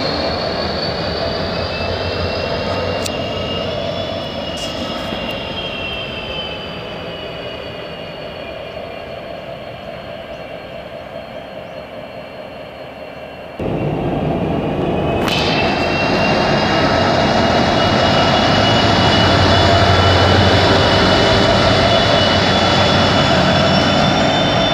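Diesel locomotives running light engine past a station: engine noise with a steady high whine that slowly fades as the first locomotive draws away. About halfway through, a cut brings in another locomotive, louder and growing louder as it comes by.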